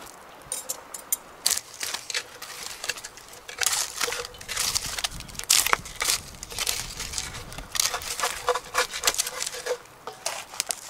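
Wood campfire crackling as burning logs are pushed and shifted with a stick, giving many irregular sharp snaps and knocks.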